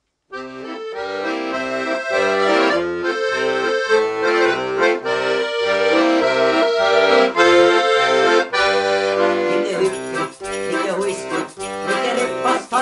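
Ballone Burini piano accordion playing the instrumental opening of a polka, a melody over an oom-pah bass and chords, starting abruptly just after the beginning. From about nine seconds in, sharp clicks run through the playing.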